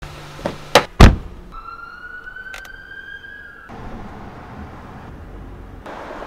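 Car door handle clicking, then the door shutting with a loud thunk about a second in. Next comes a steady high whine that rises slightly in pitch for about two seconds and cuts off abruptly, followed by steady road noise heard from inside a moving car.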